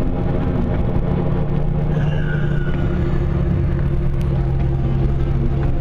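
Steady motor vehicle running noise: a constant low engine hum over road rumble, with no change in pace.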